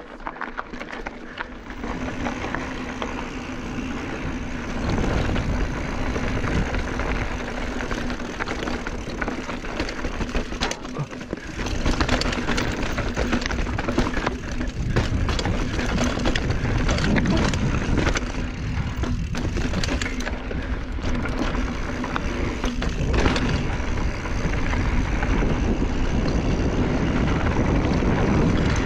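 Mountain bike rolling down a rocky dirt trail: tyres crunching over dirt and stones, with frequent clicks and rattles from the bike jolting over bumps and wind buffeting the microphone. It grows louder about two seconds in and again about twelve seconds in as speed picks up.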